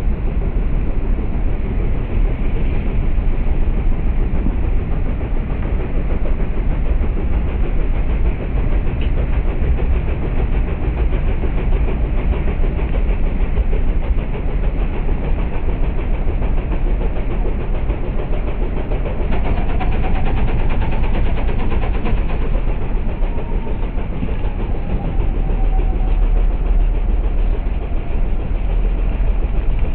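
Heavy ocean surf breaking on a rock breakwater: a continuous, loud rumble and wash of waves with no let-up.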